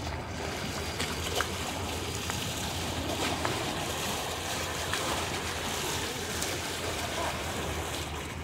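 Water splashing and sloshing as a hooked carp struggles at the surface, with a few sharp splashes, over steady wind rumble on the microphone.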